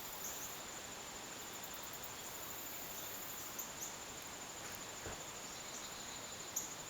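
Backyard insect chorus: a steady, high, rapidly pulsing trill like crickets, with a few brief high chirps.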